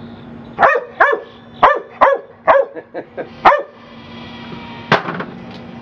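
A pit bull terrier barks sharply about seven times in quick succession. After that a ball-throwing fetch machine whirs steadily, and at about five seconds in it launches a ball with a single sharp pop.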